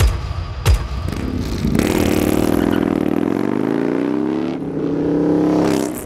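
Motorcycle engine revving, its pitch dipping and then climbing over a few seconds, after two heavy impact hits at the start and about a second in.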